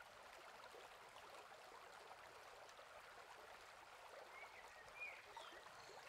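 Near silence: faint steady hiss, with a few faint short chirps about four to five seconds in.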